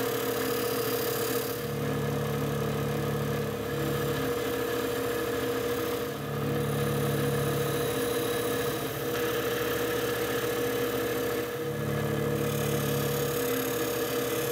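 Bench grinder's motor humming steadily as its wire wheel brushes a steel hand-plane part clean. A scratchy hiss from the wire bristles on the metal swells and fades as the piece is pressed in and moved about.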